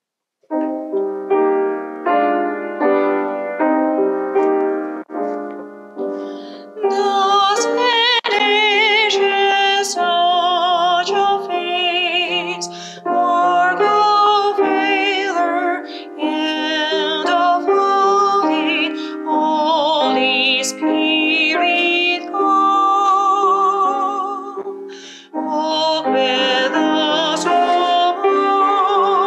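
A grand piano plays an introduction of repeated, decaying chords. About seven seconds in, a woman's solo voice enters, singing a hymn with vibrato over the piano accompaniment.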